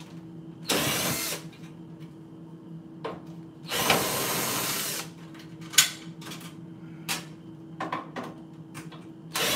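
Cordless power drill whirring against screws in a microwave oven's casing in short runs: about a second, then about a second and a half, and a third starting near the end, with a few small clicks between. The drill is running on a nearly flat battery.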